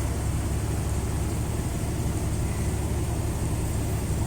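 Car idling in a queue, a steady low rumble with an even hiss, heard from inside the cabin.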